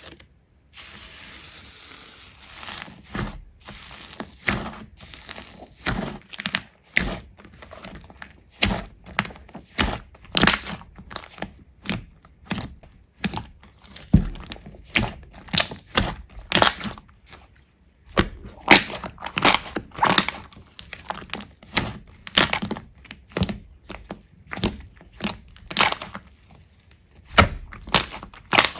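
Slime being pressed and poked, giving a long string of sharp crackling pops, roughly one or two a second.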